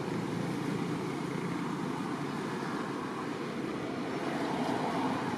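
Steady outdoor background rumble and hiss, even throughout, with no distinct animal calls or knocks standing out.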